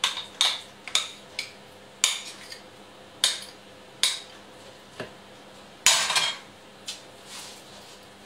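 A spoon scraping and knocking against a small bowl as coconut oil is scooped out into a mixing bowl. The clinks and scrapes come unevenly, about one a second, with a longer scrape about six seconds in.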